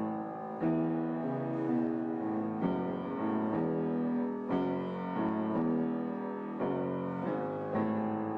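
Slow background piano music, with new notes or chords struck about once a second.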